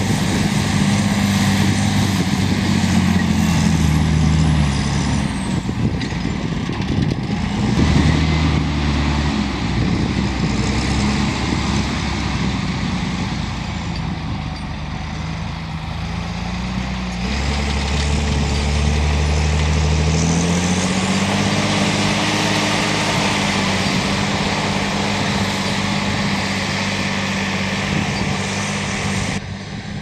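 John Deere 8520 tractor's six-cylinder diesel engine working hard while pulling a five-furrow reversible plough through the soil. The engine note dips and recovers a few times, with a steady rush of noise underneath.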